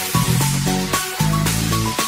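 Electronic background music with a steady beat and short bright synth notes.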